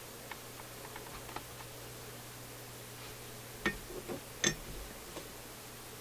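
Small clicks and scratches from fingers handling the brittle, taped remnant of an old power cord inside a vacuum tube radio chassis: a scatter of faint ticks, then two sharper clicks a little past the middle.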